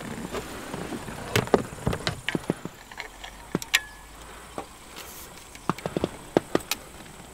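A run of irregular sharp clicks and knocks, some close together, in two clusters: one about a second in and one near the end.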